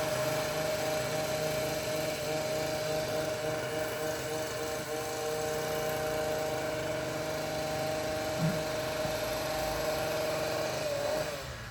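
Petrol hedge trimmer's small engine running steadily at high speed while cutting bushes, its pitch dipping and its sound fading away near the end.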